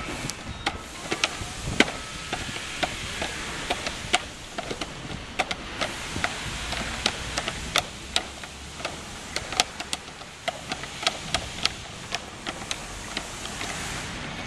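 Irregular sharp clicks and clacks from interlocking EventDeck Ultra plastic turf-protection panels as they are handled, locked together and walked on, over a steady background hiss.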